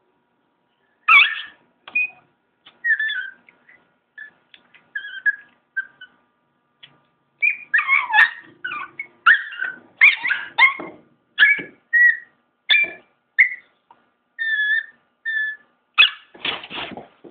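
Chihuahua whining and yelping in a long string of short, high-pitched cries, starting about a second in and coming thick and fast from about seven seconds on, with a few longer drawn-out whines.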